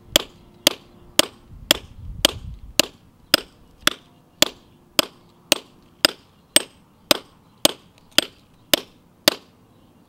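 Steel big wall hammer striking a Rock Pec hand drill with a four-tipped SDS bit, chiseling a bolt hole into concrete by hand: a steady run of sharp metallic blows, a little under two a second, each with a short ring, stopping near the end.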